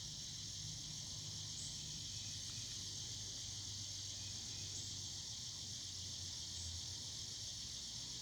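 Evening chorus of cicadas: a continuous high-pitched drone that stays steady throughout, with a low steady hum underneath.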